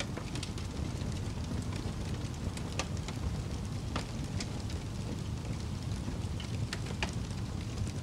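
Wood fire burning, with sharp pops and crackles from the logs at irregular intervals over a steady low rush of flame.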